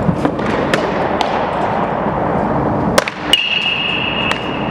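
Sharp knocks and pops in an indoor batting cage, among them a pitch smacking into the catcher's mitt. About three seconds in, a sharp metallic strike is followed by a high ringing ping that holds for over a second.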